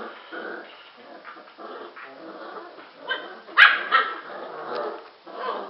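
Airedale terrier puppies play-fighting, giving short barks and growls, with one loud, sharp bark about three and a half seconds in.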